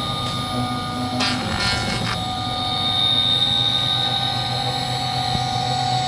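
CNC router spindle running steadily with a high whine while the machine moves over the board's surface, not yet cutting much wood. A brief rasping burst about a second in lasts roughly a second.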